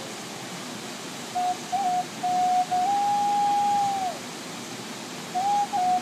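Native American flute tuned in G# playing a slow melody: a few short notes with a quick flicked ornament, then a long held note that bends down in pitch as it dies away, then a couple more notes near the end. The steady rush of a waterfall runs underneath and is heard alone in the pauses.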